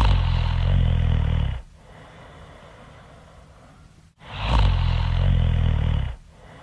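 Loud snoring: two long, low, buzzing snores about four and a half seconds apart, the first at the very start and the second near the end. A faint breathy hiss lies between them.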